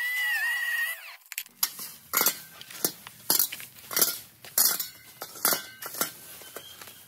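A high background melody ends about a second in. Then dishes and glassware knock and clink against each other a dozen or so times at an uneven pace as they are handled.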